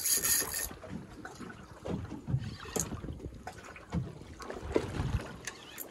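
Small boat on open water during a fish fight: water slapping the hull and wind on the microphone, with a short loud rasping burst right at the start and scattered low thuds and clicks as the spinning reel is worked against a hard-pulling fish.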